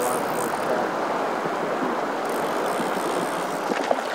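Steady rush of river current flowing around an angler wading in a fast river, with a brief sharp sound near the end.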